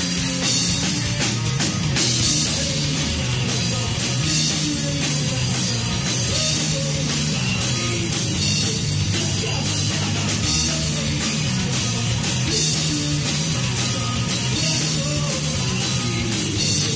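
A live rock trio of electric guitar, electric bass and drum kit plays a song at a steady, even loudness, with cymbals throughout.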